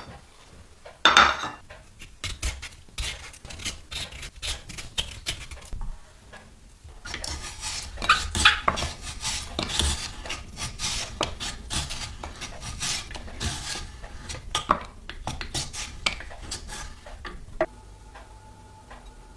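Metal parts of an old vegetable slicer clicking, clattering and scraping as it is handled, with a loud clack about a second in and a busy run of irregular knocks midway that thins out near the end.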